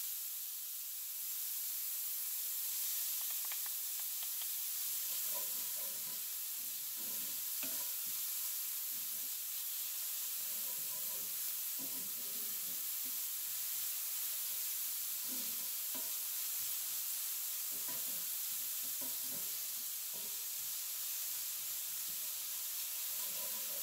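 Diced onion, celery and bell pepper sizzling in hot oil and fat in a cast iron skillet, a steady hiss. From about five seconds in, a wooden spoon stirs and scrapes across the pan bottom in repeated short strokes.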